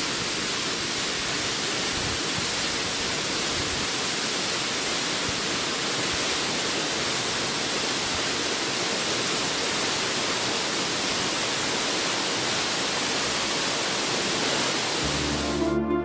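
Waterfall pouring steadily as an even, unbroken rush of water. The flow is unusually heavy, swollen by the previous days' rain. Soft background music comes in near the end.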